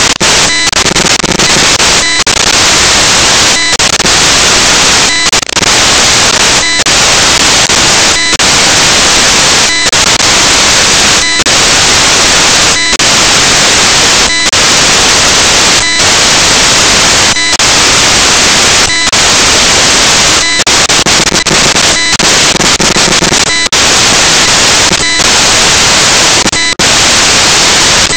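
Loud, steady static hiss filling the sound track, broken by brief dropouts about every second and a half.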